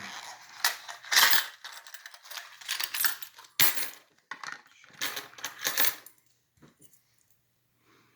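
Small metal parts clinking and rattling as the aluminium padlock and the metal picks are handled: a run of sharp clicks over about six seconds, then only a few faint ticks.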